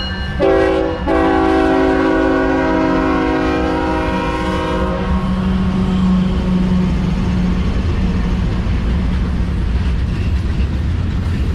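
Diesel freight locomotive air horn: a short blast, then a long blast that stops about five seconds in, over the steady rumble of the passing train.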